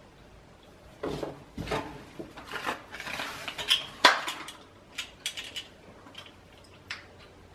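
Hard plastic toy parts clicking and clattering as the toy is handled: a string of irregular knocks and clicks after a quiet first second, the sharpest about four seconds in.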